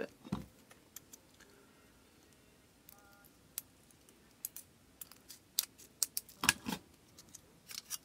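Small scissors snipping thin tin sheet: a scattering of short, sharp cuts and clicks, mostly in the second half, the loudest about six and a half seconds in.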